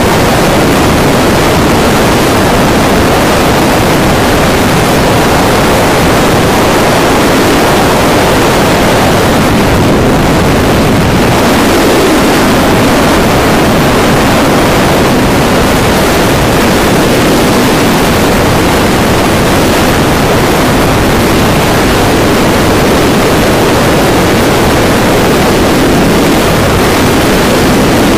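Loud, steady rush of wind over the camera's microphone from a wingsuit flying at about 105 to 150 km/h.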